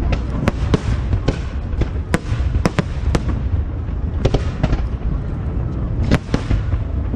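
Aerial fireworks show: a rapid series of sharp bangs and crackles from bursting shells, several a second, over a continuous low rumble.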